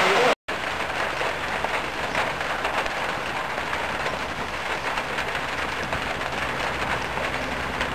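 Steady rain falling. The sound drops out briefly just before half a second in, then carries on a little quieter, with a faint low hum underneath.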